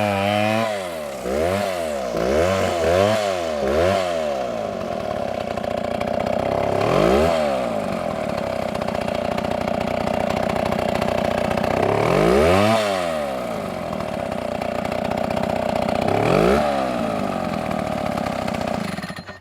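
Chainsaw engine running at high speed, its pitch dipping and recovering in quick swoops several times in the first few seconds and a few more times later. It cuts off suddenly near the end.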